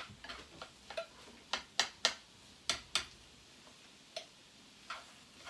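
Chopsticks clicking against a skillet while stirring cauliflower rice and egg: about a dozen irregular sharp taps, some in quick pairs, with long gaps between them.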